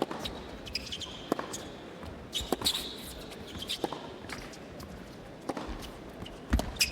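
Tennis rally on a hard court: sharp racket strikes and ball bounces about once a second, with high sneaker squeaks as the players move.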